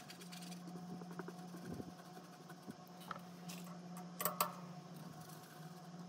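A steady low electrical hum, with two sharp clicks a fraction of a second apart about four seconds in.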